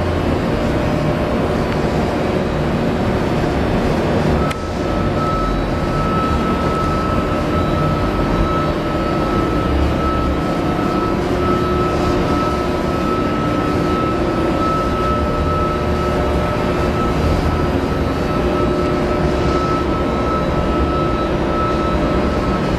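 Hydraulic power unit of a Horn HMT2 CNC tube bender running: an electric motor driving the hydraulic pump with a steady hum and hiss. A steady high whine comes in about four seconds in.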